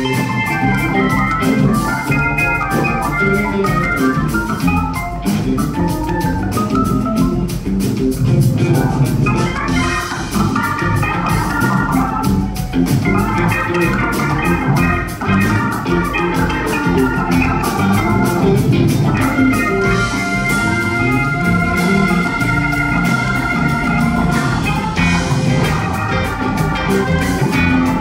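Live band playing an instrumental stretch: electric bass and drum kit under busy organ-toned keyboard lines, with long held chords a little past the middle.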